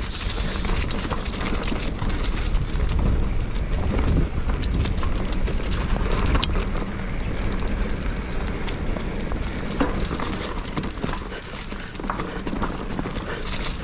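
Mountain bike rolling down a rocky dirt trail: tyres crunching over loose stones and the bike rattling and knocking over the bumps, with wind buffeting the microphone.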